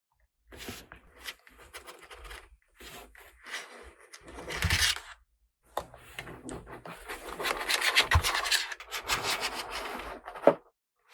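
Toy pieces and packaging being handled, in irregular bursts of rubbing and scraping, with a sharp click near the end.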